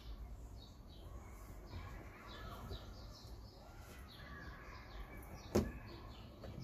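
Birds chirping repeatedly in short high calls, with a single sharp click about five and a half seconds in.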